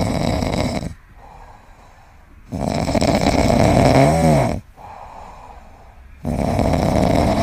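Kitten snoring loudly in its sleep: three long snores a few seconds apart, the middle one ending in a brief wavering whistle.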